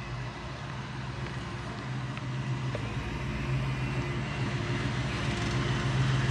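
A motor vehicle's engine idling steadily, growing a little louder toward the end.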